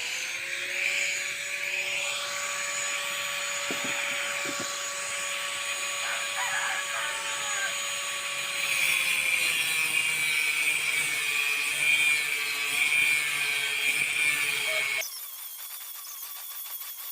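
Electric angle grinder running on metal with a steady whine. About halfway through, the whine sags a little in pitch as the sound grows louder and harsher, a sign of the disc bearing down under load. It cuts off abruptly near the end.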